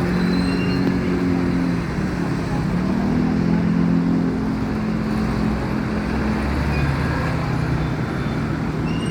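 A vehicle engine running steadily over continuous background noise. Its low hum dips and then rises in pitch about two seconds in.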